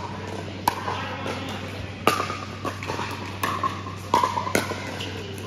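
Pickleball rally: a hard plastic pickleball struck back and forth with paddles and bouncing on the court, heard as sharp pops about a second apart that ring in a large indoor hall, over a steady low hum.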